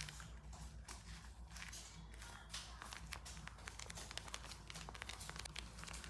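Paper squishy being squeezed and handled, its paper crinkling in a steady run of small irregular crackles.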